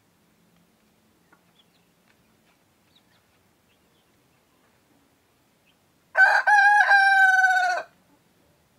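A cockerel of an egg-laying breed crows once, about six seconds in. The crow lasts about a second and a half, with two short breaks near its start, then a held note that falls slightly before it stops.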